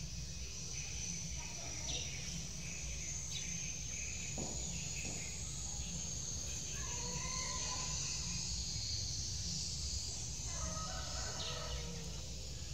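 Outdoor ambience: a steady high-pitched insect drone over a low hum, with a pitched call heard about halfway through and a longer one near the end, in the manner of a distant rooster or other bird.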